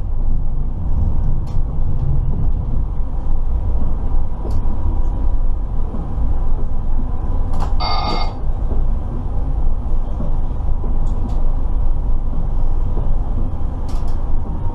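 Steady low running rumble of an Alstom Citadis Dualis tram-train heard inside the driver's cab, with a faint steady whine. About eight seconds in, a short ringing tone sounds for about half a second.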